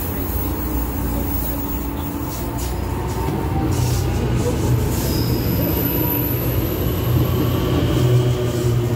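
NJ Transit electric commuter train passing close along the platform: a steady rumble that grows louder from about three and a half seconds in, with a thin high-pitched squeal for a couple of seconds in the second half.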